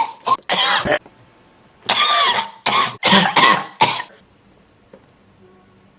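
A man coughing in short bursts: two coughs in the first second, then a run of about five more between two and four seconds in.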